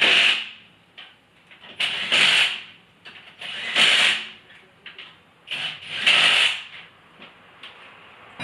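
Power tool, such as a cordless impact wrench or drill, run in four short bursts about two seconds apart, spinning wheel nuts during a tyre change.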